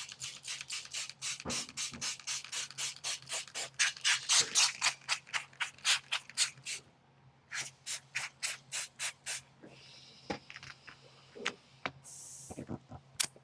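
Quick, rhythmic rubbing strokes on wet paint protection film laid over a car hood, about four or five a second, as the film is tacked down. The strokes pause briefly after about seven seconds, start again, then stop, and a short hiss comes near the end.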